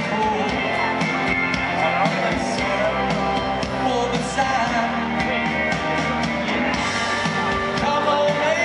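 A rock band playing live, with a male lead singer over electric guitar, organ and drums.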